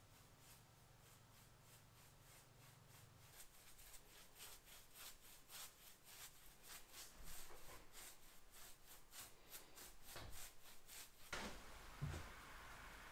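Paintbrush bristles brushing paint onto a wooden door, soft scratchy strokes repeating about three times a second and growing louder partway through. Near the end a low knock as the brush is dipped in the metal paint tin.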